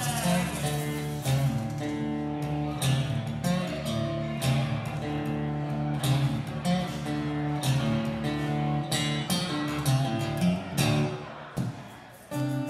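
Acoustic guitar playing an instrumental passage of plucked chords. The playing drops away briefly near the end, then starts again.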